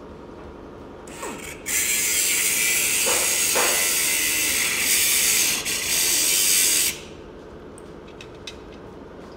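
Pneumatic cutoff wheel cutting through the steel motorcycle frame tube: a short burst about a second in, then about five seconds of steady, hissy running, cut off abruptly near seven seconds. A few light clicks follow.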